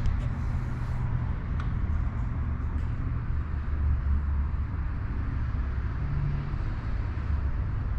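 Steady low rumble of background vehicle noise with a faint hum, and a couple of light clicks.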